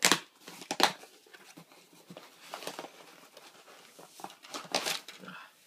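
Shipping package being torn open by hand: short bursts of ripping and rustling packaging, the loudest right at the start, just under a second in, and near five seconds in, with quieter handling between.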